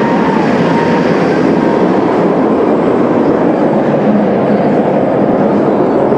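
Steel roller coaster train running along its track, a loud, steady rumble.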